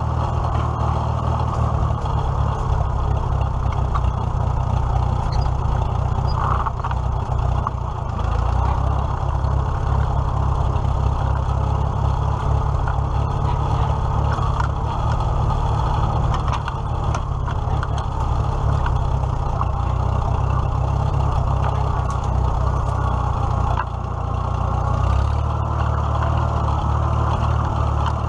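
Farmall H tractor's four-cylinder gasoline engine running steadily while the tractor is driven, heard close to its upright exhaust stack. The engine is running on its freshly reinstalled carburetor.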